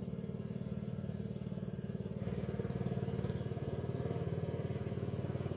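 A small engine running steadily with a fast, even putter, getting a little louder about two seconds in.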